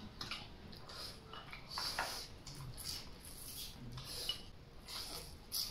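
Quiet eating sounds at a meal: wooden chopsticks clicking against porcelain rice bowls, with scattered short smacks of chewing.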